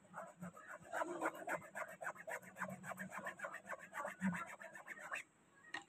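Toothbrush bristles scrubbing shirt fabric in quick back-and-forth strokes, about six a second, stopping about five seconds in: stain remover being worked into an oil-paint stain.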